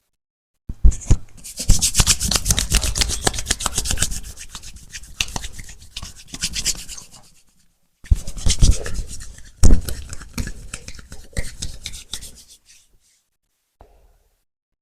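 Hands rubbing fast and hard over skin or hair during a massage, in two stretches of rapid strokes with an abrupt break about halfway. A few sharp smacks stand out, the loudest about ten seconds in, and the rubbing fades out near the end.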